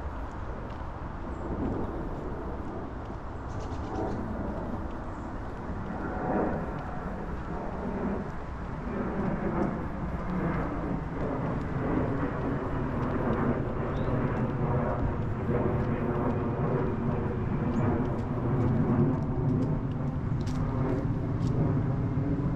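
An engine drone over outdoor background noise, coming in about a third of the way through and growing louder toward the end.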